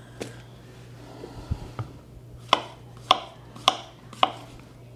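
Knife slicing mushrooms on a wooden cutting board: the blade strikes the board in short sharp taps, a few scattered ones and then four in a row about every half second.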